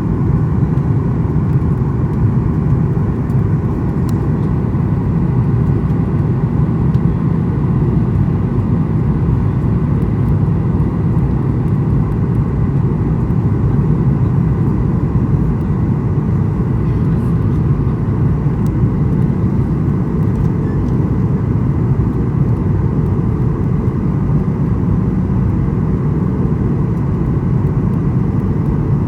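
Steady rumble of a Boeing airliner's engines and airflow heard from inside the passenger cabin on the approach to landing, with a faint steady whine above it.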